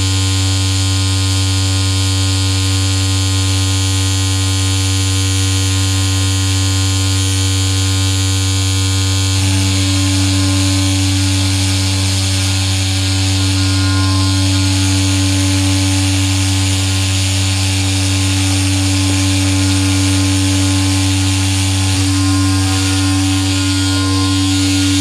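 Electronic drone from patch-cabled synthesizer and effects gear: a loud steady low hum with sustained tones above it and a hiss on top. The hiss thickens about ten seconds in.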